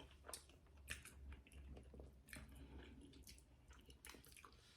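Faint close-up chewing: scattered wet mouth clicks and smacks of a person eating fufu with egusi soup.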